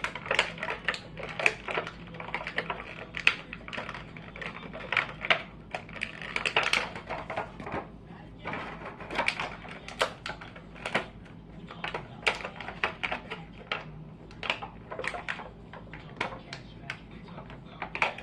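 Toy packaging being handled: a rapid, uneven run of small clicks, taps and crinkles as the toy figures are fitted back into their packaging.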